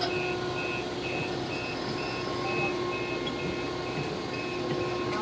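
Reversing alarm of a vehicle or machine beeping in a steady rhythm, about two high beeps a second, over a steady engine or machinery hum.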